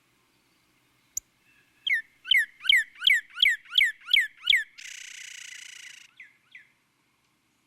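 A bird calling: a click, then a run of about eight loud notes, each falling in pitch, roughly three a second, followed by a harsh buzzing note lasting about a second and two short notes after it.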